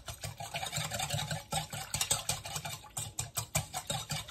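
Wire balloon whisk beating a thin powder-and-water mix in a stainless steel bowl: a quick, steady run of metallic clicks and scrapes as the wires strike the bowl, several strokes a second.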